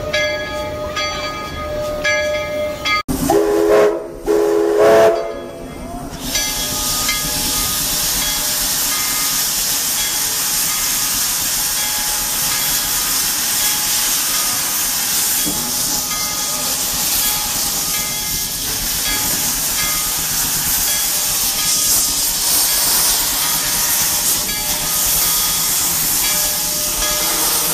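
Steam locomotive whistle sounding a chord, two blasts about three to five seconds in, followed by a steady loud hiss of escaping steam.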